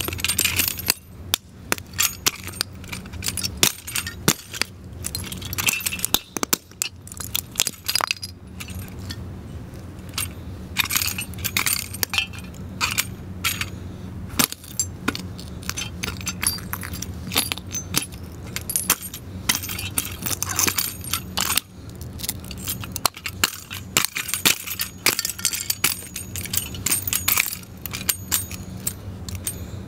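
Combat boots stomping on and crushing a broken wall sconce: a rapid, irregular run of sharp crunches, cracks and clinks as the white shade fragments and brass lamp fittings are ground against concrete.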